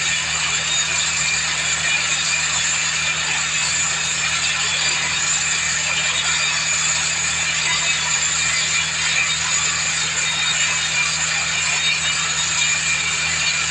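Water-well drilling machine running steadily.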